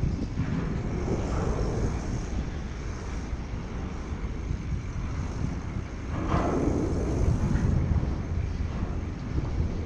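Road traffic going by during a bike ride, a steady rumble with wind on the microphone. One vehicle passes louder about six seconds in.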